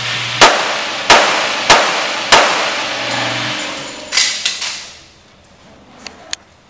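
Handgun fired in quick succession in an indoor range: four shots about 0.6 s apart, each with a hard echo off the walls, then two more a little after four seconds as the shooter moves. Two faint light clacks follow near the end.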